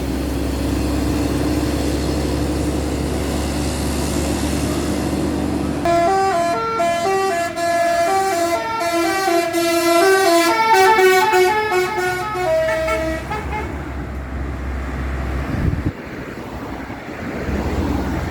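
A bus's multi-tone telolet horn playing a fast stepped melody for about seven seconds, starting about six seconds in and then fading, over the low steady running of the bus's diesel engine.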